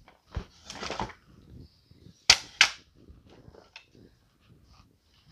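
Picture frames knocking against each other as they are handled and stacked: a few sharp clacks, the loudest two close together a little over two seconds in, with a brief rustle about a second in.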